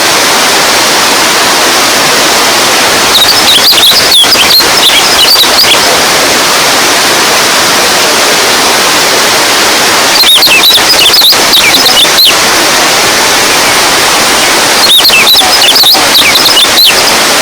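Running water, a steady rushing flow. Three times, about three, ten and fifteen seconds in, a cluster of short high chirps sounds over it for a couple of seconds.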